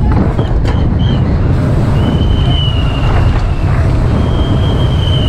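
Wind buffeting the camera on a downhill mountain bike at speed, with the tyres rumbling on asphalt. A thin, high, steady squeal sounds twice over it, each time for about a second.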